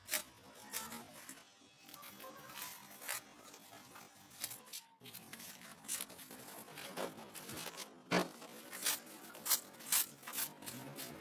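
Adhesive tape being pulled and pressed down and clear plastic sheeting being handled: a run of short, irregular rips and crackles, a few louder ones near the end.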